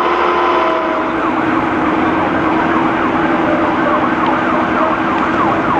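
Emergency vehicle siren going in a fast, repeating yelp over a steady engine hum.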